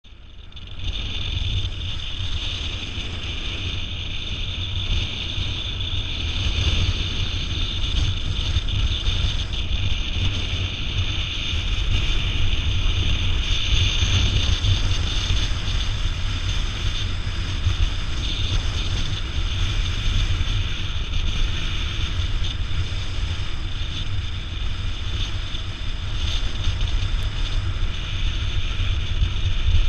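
Wind rushing over the microphone of a camera on a moving motorcycle: a steady low rumble with a hiss above it, the bike's running sound buried underneath.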